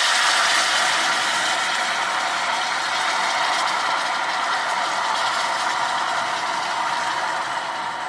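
Hot caramel in a stainless steel saucepan sizzling and crackling loudly as liquid is poured into it, a steady hiss that eases off slightly near the end.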